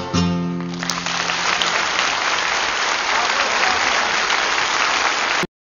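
The band's last held chord on guitar and fiddle closes an Irish folk song. About a second in, a concert audience breaks into loud applause, which cuts off abruptly near the end.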